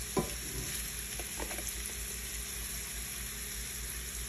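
Ground beef and diced vegetables sizzling steadily in a frying pan as it is seasoned, with a few light taps in the first second and a half.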